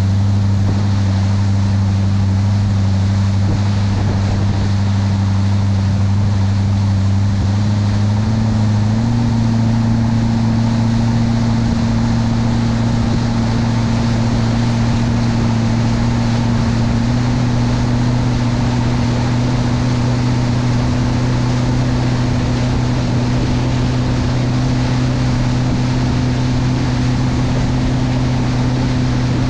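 Mastercraft Prostar 190 ski boat under way at speed: the steady drone of its inboard V8 engine over the hiss of spray and wind along the hull. The engine pitch rises slightly twice, under a third of the way in and again just past halfway.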